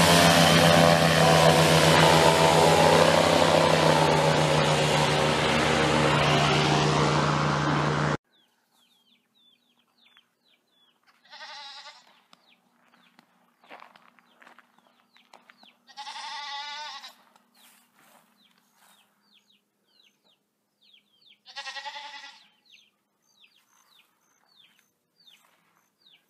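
An airboat's engine and propeller running loud as it speeds past, cut off abruptly about eight seconds in. Then goats bleating three times, several seconds apart, over faint high chirping.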